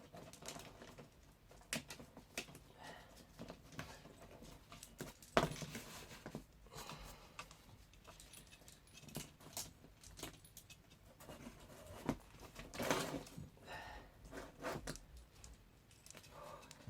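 Scattered light clicks, clinks and rustles of a car window regulator and its cables being handled and worked by hand. There is one sharper knock about five seconds in and a longer rustling spell a little past the middle.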